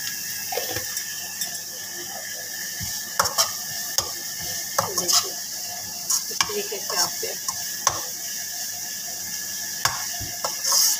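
Slotted steel spatula scraping and knocking against a non-stick kadai at an irregular pace as shredded cabbage and carrot are stir-fried, over a steady sizzle of the vegetables in ghee. A louder scrape comes near the end.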